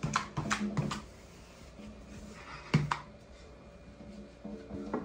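Knocks and clacks of a wooden rolling pin working baklava dough on a marble slab. A quick cluster of knocks comes at the start, one sharper knock about three seconds in, and another near the end.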